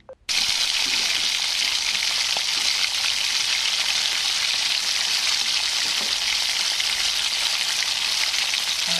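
Hot oil tempering (tadka) of cumin seeds and fresh coriander sizzling loudly as it is poured onto a pot of cooked dal. The sizzle starts suddenly a moment in, holds steady, and cuts off near the end.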